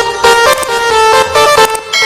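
Telolet bus horn: a multi-tone musical air horn playing a quick tune of short, stepped notes.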